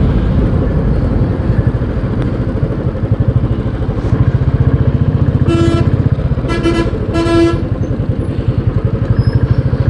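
Royal Enfield Bullet 350's single-cylinder engine running at low speed with an even pulsing beat, rolling slowly in traffic. A vehicle horn honks three times in quick succession a little past the middle, the last two close together.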